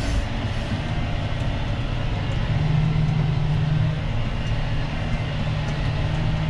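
Tractor engine running steadily under load while pulling a plough, heard from inside the cab as a low, even drone. The drone grows a little stronger about two and a half seconds in.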